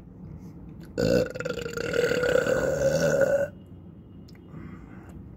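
A man's long, loud belch, starting about a second in and drawn out for about two and a half seconds on a fairly steady pitch, from a stomach full after a big meal.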